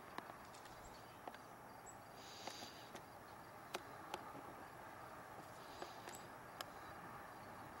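Faint outdoor background hiss with scattered sharp clicks and two brief high chirps, about two and a half and six seconds in.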